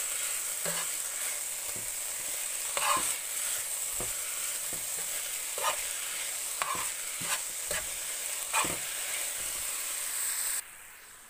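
Stir-fried noodles, vegetables and sausage sizzling in a hot nonstick frying pan while being tossed, with sharp clicks and scrapes of the utensil against the pan about once a second. The sizzle cuts off suddenly near the end.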